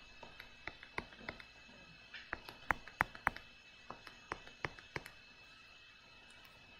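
Light, irregular clicks and taps of a stylus on a drawing tablet as structural formulas are handwritten, the clearest between about two and five seconds in, then stopping.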